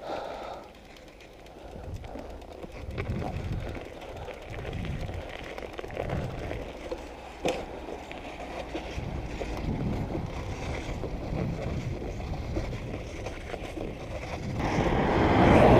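Wind buffeting the microphone, with road noise, as a 1974 Honda PC50 moped is ridden slowly on a punctured tyre. There is a single knock about seven and a half seconds in, and the wind rush grows louder near the end.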